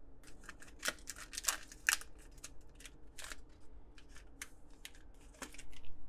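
Hockey trading cards being flipped through by hand, each card slid off the stack and tucked behind the others. The cardboard makes a quick, irregular run of short swishes and clicks, several a second.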